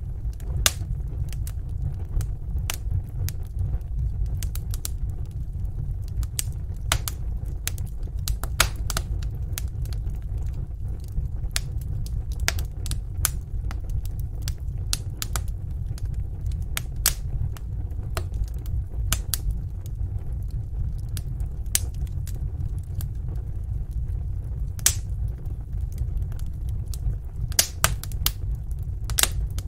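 Fire burning in a fireplace: a steady low rumble with frequent, irregular sharp crackles and pops.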